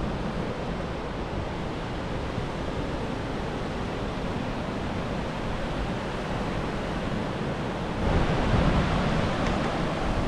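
Ocean surf washing onto a beach, with wind rumbling on the microphone. The noise is steady and gets louder about eight seconds in.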